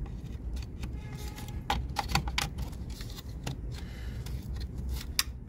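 Plastic wiring-harness connectors being pressed onto an engine computer (ECU) and their locks pushed home: a scatter of small sharp clicks and clacks.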